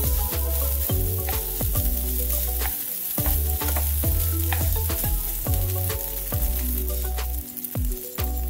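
Egg fried rice sizzling and being stirred in a pan over high heat, under background music with a steady beat and a strong bass line.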